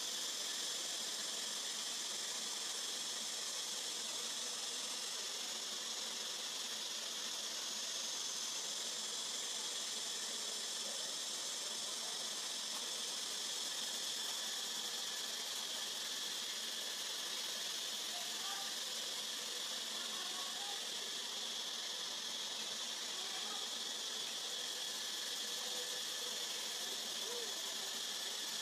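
Steady high-pitched drone of insects, unbroken and level throughout, with a few faint short chirps in the middle.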